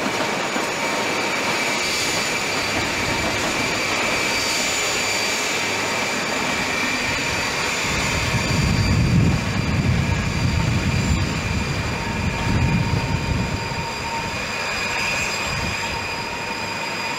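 InterCity 125 Class 43 power car's diesel engine working as the high speed train pulls away, a steady high whine over the rumble of engine and wheels. It grows loudest about halfway through as the power car passes, then eases off.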